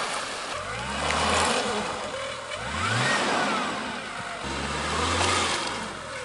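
Off-road 4x4 engine revving in three surges, each climbing in pitch, with a higher whine that rises and falls around the middle.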